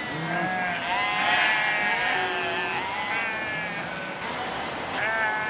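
A flock of sheep bleating, many calls overlapping, busiest about a second in and again near the end.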